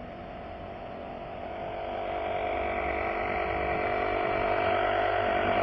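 A steady mechanical whir or hum with several held tones, growing gradually louder.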